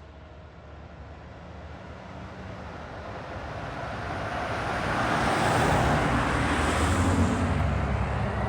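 Fire ladder truck approaching: its engine rumble and tyre noise grow steadily louder for about five seconds, then hold loud.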